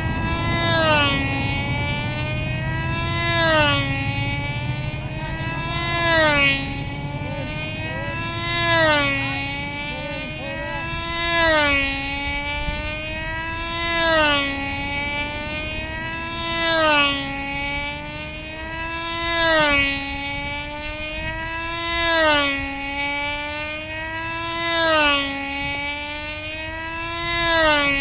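Small model-aircraft racing engine running flat out on a control-line Slow Goodyear racer. Its high buzzing pitch swells and swoops up and down once a lap, about every two and a half seconds, as the plane circles past.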